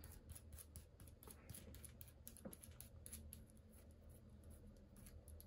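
Faint, irregular small metallic clicks of a nut being turned by hand along a threaded steel rod, over a low steady hum.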